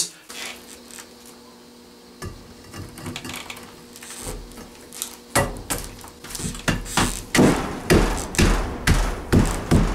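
Repeated knocks on a 3/4 inch concrete paver block as it is set into adhesive on a wall. The knocks start about five seconds in after some quieter handling, come two to three a second and grow louder toward the end.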